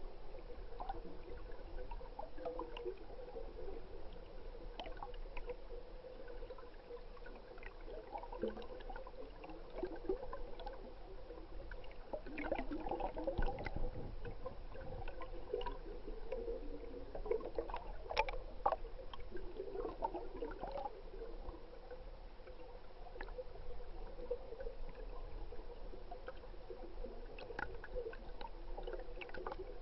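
Stream water gurgling, heard underwater through a submerged camera, with scattered small clicks and ticks and a faint steady hum.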